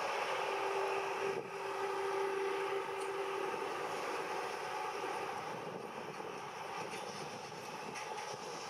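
A Boeing 777's twin jet engines running as the airliner rolls along the runway, a steady rushing roar with a steady hum for the first few seconds.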